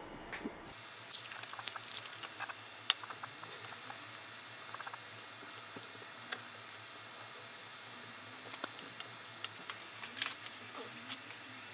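Adhesive tape being peeled off an amber reusable casting mould and the mould turned in the fingers: scattered soft crinkles and sharp little clicks, busiest near the start and again near the end.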